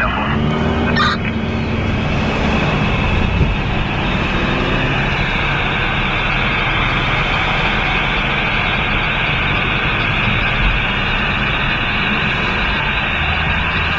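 Steady road and engine noise heard from inside a car in slow, heavy traffic, with a steady high hiss over it.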